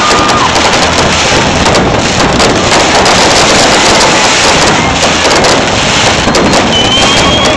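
A fireworks display crackling and banging without pause, dense enough to blur into one steady, loud wash of noise, with a faint high whistle near the end.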